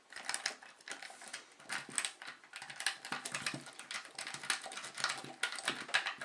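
Paperclip rake being worked in and out of a pin tumbler lock under light tension: fast, irregular metallic clicks and scrapes as the pins are raked.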